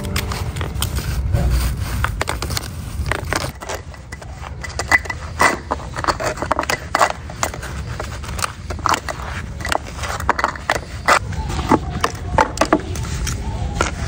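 Soapy brush and sponge scrubbing the plastic parts of a table fan: irregular wet rubbing and scraping strokes.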